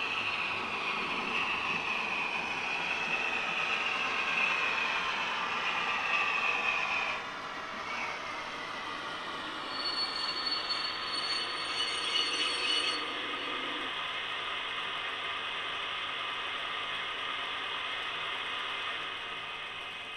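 Brawa V100 (BR 213) model diesel locomotive with a sound decoder running on a model railway: a steady mechanical whir and clatter of the model's drive and wheels on the track, mixed with the decoder's diesel sound. The sound changes at about 7 s, and a thin high tone sounds for about three seconds midway.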